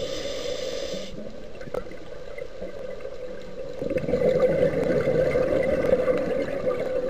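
Muffled underwater noise recorded through a dive camera's housing, getting louder with a bubbling gurgle about four seconds in, typical of a scuba diver's exhaled bubbles.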